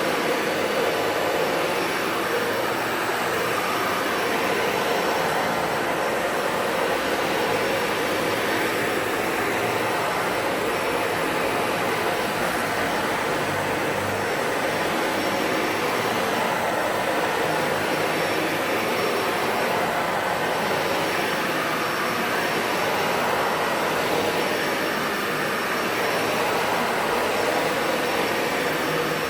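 Brand-new Dyson Ball Animal 2 Total Clean upright vacuum cleaner running steadily while vacuuming, a constant rush of motor and airflow noise.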